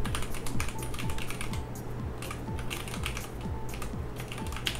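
Computer keyboard being typed on: a quick, irregular run of key clicks, over background music.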